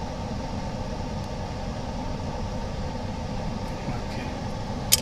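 Steady low machine hum with one sharp click near the end.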